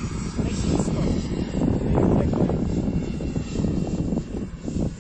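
Xicoy X45 kerosene jet turbine of a large model L-13 Blaník glider, running as the model flies past at a distance: a continuous rushing jet noise, loudest about two seconds in, mixed with a rumble of wind noise on the microphone.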